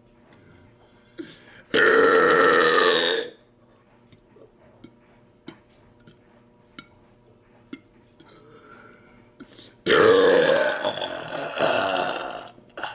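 A man burping loudly twice: a burp of about a second and a half, then a longer, drawn-out burp of about two and a half seconds near the end.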